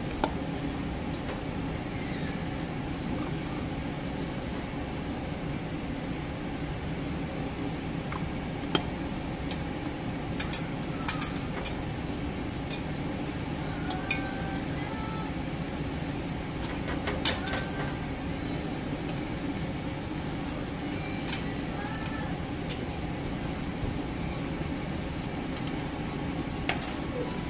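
Metal canning lids and screw bands clinking against glass jars as they are set on and screwed down: a scattering of sharp, separate clicks over a steady low hum.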